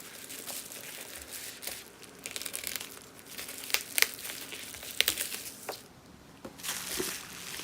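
Packaging crinkling and rustling as it is handled and unwrapped, with a few sharp clicks near the middle.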